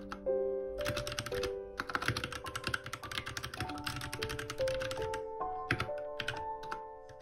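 Typing on a compact backlit computer keyboard: a quick run of key clacks starting about a second in, turning sparser in the second half and stopping near the end, over soft piano music.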